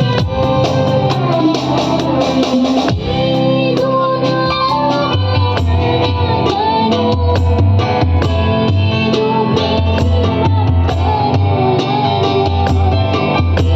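Music: a melody with a plucked-string part, with a pulsing bass beat coming in about five seconds in.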